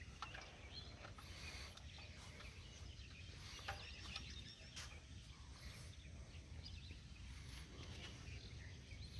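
Faint outdoor background: a steady low rumble with birds chirping now and then and a few small clicks.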